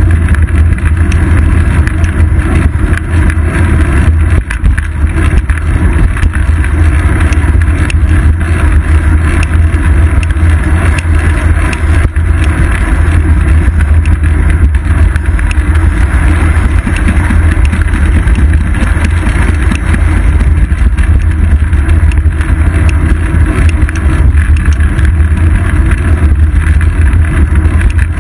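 Bicycle riding on a city street heard through a seat-post-mounted GoPro: a loud, steady low rumble of wind on the microphone and road vibration, with tyre and traffic noise above it.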